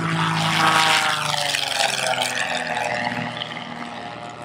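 Velocity V-Twin twin-engine pusher canard passing low and climbing away: its two piston engines and propellers are loudest about a second in, then the pitch falls and the sound fades toward the end.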